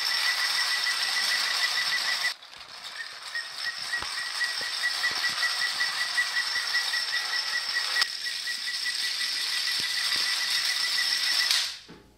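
Clockwork motor of a tinplate toy locomotive whirring as it runs across a wooden floor, with a fast, even ticking. The sound dips briefly a couple of seconds in, then carries on until it cuts off near the end.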